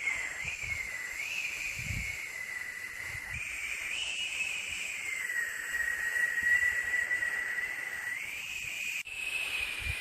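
Steady white-noise hiss with a whistling band whose pitch slowly wavers up and down. The sound briefly drops out and resumes slightly changed about nine seconds in.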